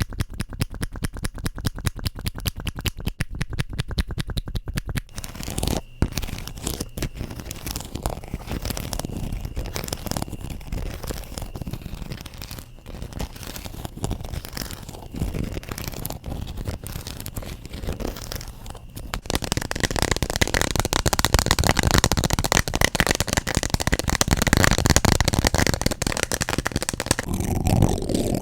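ASMR tapping and scratching on objects, close to the microphone: quick, rapid tapping at first, then slower scattered taps and scratches, turning into louder, denser scratching about two-thirds of the way through.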